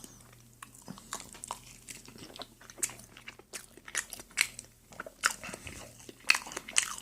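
A person chewing pancakes close to the microphone, with irregular wet mouth clicks and smacks that grow louder near the end.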